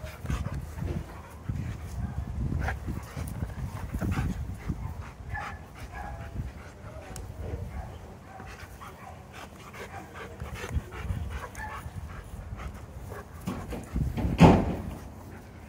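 A Sheepadoodle puppy and an Old English Sheepdog play-fighting: panting, short whimpering yips and scuffling, with one louder burst near the end.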